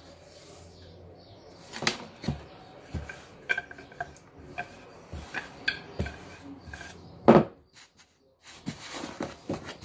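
Light taps and knocks of hands and a tape measure on a wooden pastry board as rolled dough is measured and pressed flat, with one louder thump about seven seconds in.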